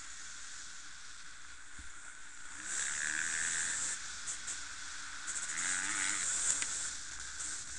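Enduro dirt bike engines running and revving under a steady hiss, rising in pitch and loudness twice: about three seconds in and again near six seconds.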